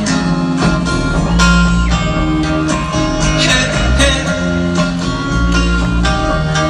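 Live rock band playing a guitar-led instrumental passage with no vocals, amplified through an arena PA and heard from among the audience.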